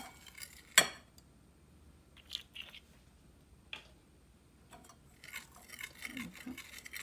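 Steel wire whisk stirring dry flour and spices in a ceramic bowl, its wires clinking against the bowl: two sharp clinks in the first second, then quieter scattered taps and light scraping.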